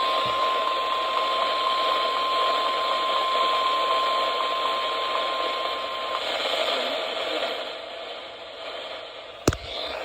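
NOAA Weather Radio 1050 Hz warning alarm tone, a single steady beep heard off-air through heavy radio static. It stops about six seconds in, leaving only the hiss of weak reception, and a sharp click comes near the end.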